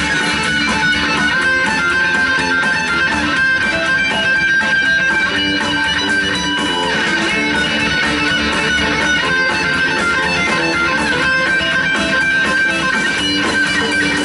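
Instrumental rock trio of electric guitar, bass guitar and drums playing live, a dense steady wash of sound with a long held high guitar note over it.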